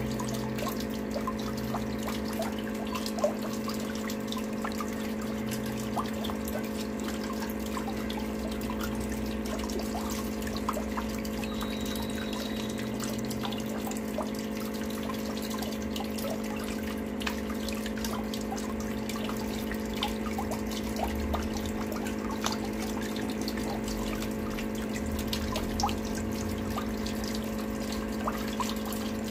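A thin stream of water trickling from a small tap into water, with scattered small drips and splashes, over a steady low hum.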